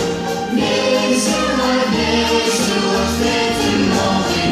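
Choral music: a choir singing long held notes.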